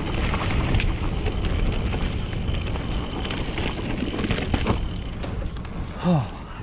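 Mountain bike riding down a dirt trail: a steady rush of tyre and wind noise, with scattered clicks and rattles from the bike. A brief falling tone comes about six seconds in.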